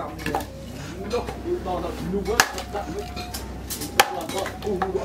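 A small hand-forged axe, made from leaf-spring steel, chopping into a short piece of wood on a wooden block: a handful of sharp chops, the loudest about two and a half seconds in and again at four seconds.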